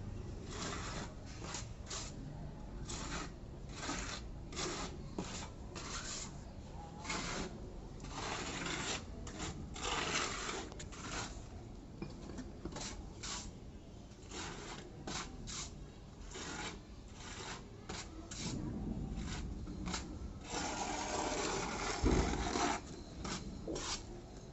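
Repeated rasping strokes of a hand tool scraped across a wall's texture coating, one or two a second, with a longer continuous scrape near the end.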